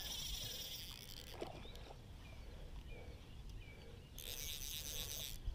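Fly reel's click ratchet buzzing in two short spells, at the start and about four seconds in, as line is wound in on a hooked brown trout, over a low steady rumble.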